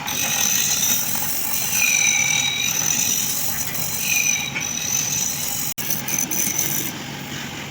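Wood lathe running steadily, with a high whine over its hum and two short higher squeals about two and four seconds in. The sound cuts out for an instant near the end.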